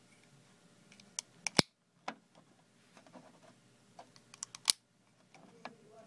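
Plastic carabiner gates on solar phone chargers being worked by hand: a few light clicks, then a sharp snap about a second and a half in, and the same again about three seconds later.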